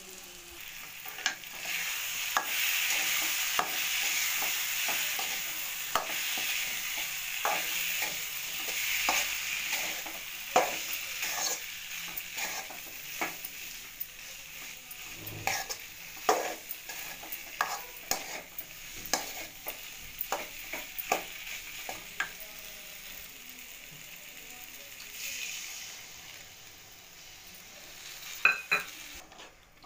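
Crumbled boiled potato frying in spiced oil in a metal pan, sizzling steadily while a metal spoon stirs it, scraping and clicking against the pan. Near the end the sizzle dies down.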